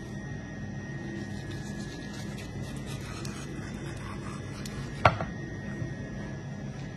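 Knife cutting and rubbing through a block of raw tuna on a cutting board, with a single sharp knock about five seconds in, over a steady low kitchen hum.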